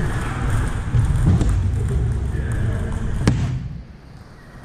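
Ambience of a large gym hall during table tennis play: low thuds and scattered ball clicks from other tables, with one sharp click a little over three seconds in. The sound drops quieter about a second before the end.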